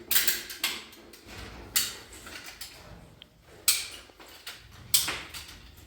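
About five sharp knocks and clunks at uneven intervals, each dying away quickly: parts being handled and knocked during kitchen cabinet installation.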